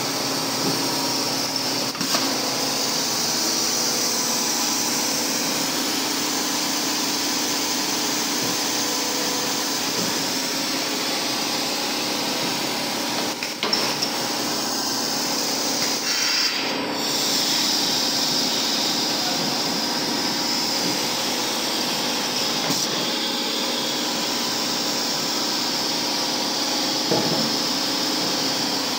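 Automatic double-head, double-stage blow moulding machine running: a steady mechanical hum and hiss, with a few short knocks scattered through.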